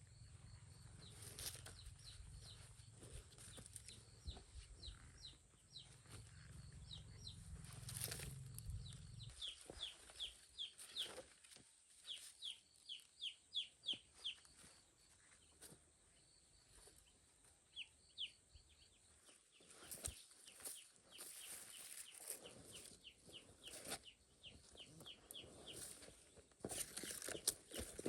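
Chicks peeping in quick runs of short, high chirps, with scattered clicks. A low hum underneath stops about nine seconds in.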